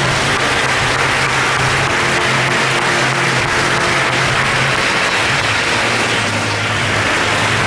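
A large crowd applauding steadily, with music playing underneath.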